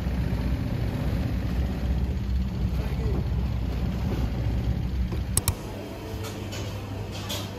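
Motorboat engine running steadily with a low rumble, which cuts off abruptly just after five seconds in with a click. Quieter background with a steady low hum follows.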